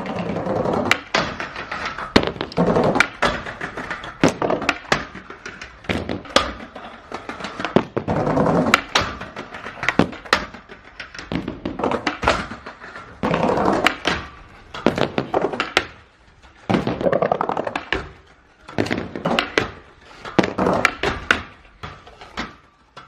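Skateboard tricks: sharp tail pops and landing clacks, between stretches of trucks grinding and the board sliding along a rail or ledge.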